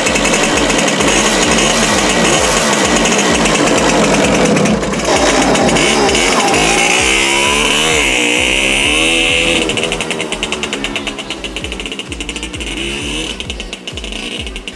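Jawa Pionýr 21 moped's 50 cc two-stroke single-cylinder engine running and revving up and down as it pulls away, then fading as the moped rides off.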